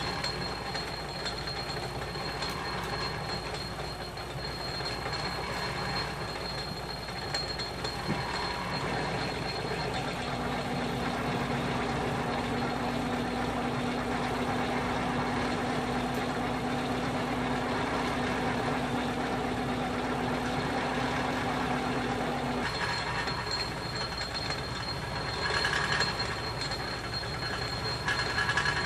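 Atlas metal lathe running in back gear, drilling a large hole with a twist drill fed from the tailstock into a workpiece in a four-jaw chuck: a steady machine run with the cutting noise of the drill. A steady low hum joins from about ten seconds in until about 23 seconds, and the noise gets briefly louder about 26 seconds in and again near the end.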